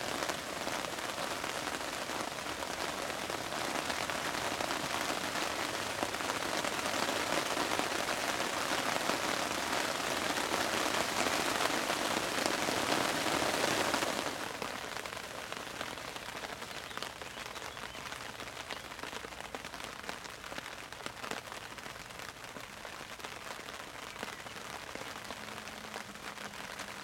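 Heavy rain falling on a lake, a dense steady hiss of drops hitting the water. About halfway through it drops to a lighter, quieter rain.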